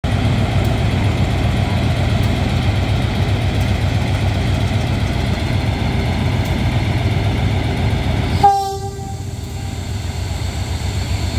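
Diesel-electric locomotive GEA 4534's engine running with a steady low throb. About eight and a half seconds in, a short horn toot sounds and quickly fades.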